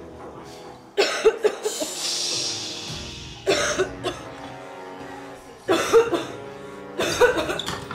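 Background music with sustained tones, over which a person coughs in short fits about every two seconds.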